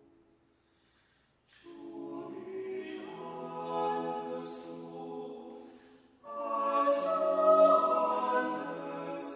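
Four-voice a cappella SATB quartet singing a slow choral prayer setting. After a silent rest of about a second and a half the voices come in together. They drop away briefly about six seconds in, then re-enter louder.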